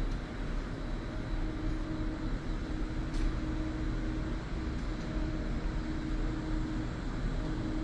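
Steady low hum and rumble of a large machine shop's background noise, with a constant mid-pitched tone running through it. A faint click comes about three seconds in.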